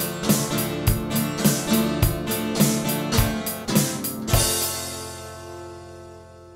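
Guitar and drum kit playing the closing bars of a rock song. The beat stops on a last hit about four and a half seconds in, leaving a final chord that rings and fades out.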